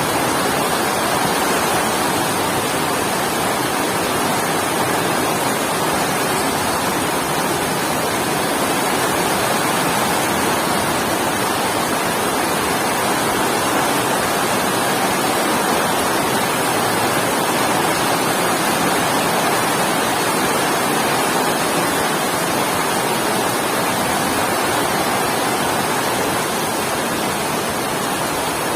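Heavy rain falling steadily as an even hiss.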